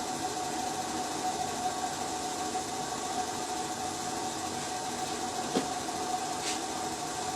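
Engine running steadily with a constant whine over a hiss, and a single click about five and a half seconds in.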